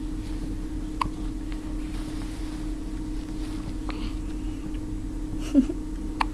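A young child hiccuping: a faint short hic about a second in and a louder voiced hic about five and a half seconds in, over a steady background hum.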